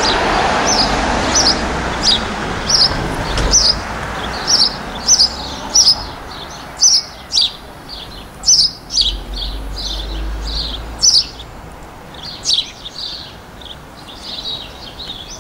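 A small bird chirping over and over: short, high, falling notes about two a second, over a soft background rush that fades over the first few seconds.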